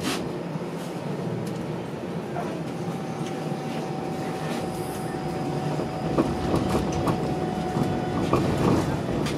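Inside a Toronto TTC Flexity Outlook streetcar as it moves off from a stop: a steady low hum, with one held high tone for several seconds in the middle. Then rumble and scattered clicks from the wheels on the rails grow louder as it gathers speed.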